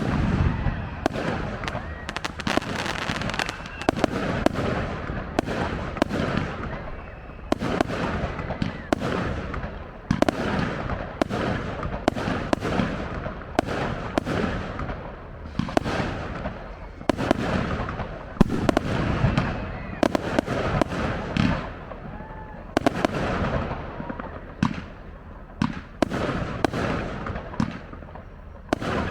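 Fireworks display: a continuous barrage of aerial shell bursts, bangs coming every second or so with crackling between them.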